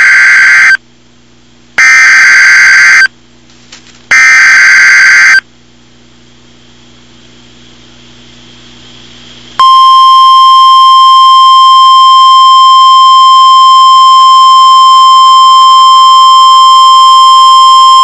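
NOAA Weather Radio Emergency Alert System SAME header: three loud, buzzy digital data bursts of about a second each, separated by short gaps. After a few seconds of low hum, the single steady high-pitched Warning Alarm Tone starts about ten seconds in. Together they mark that a new warning is being issued.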